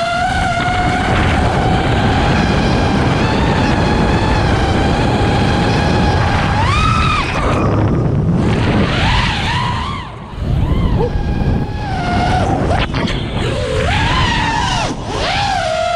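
FPV racing quadcopter's brushless motors and propellers whining. The pitch holds steady for about six seconds, then swoops up and down with the throttle, dipping briefly about ten seconds in, over a heavy low wind rumble on the microphone.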